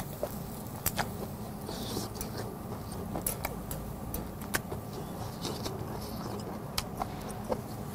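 Metal tongs clicking and tapping against a wire grill grate over a charcoal fire as beef tongue is turned, in scattered sharp clicks over a steady low rumble.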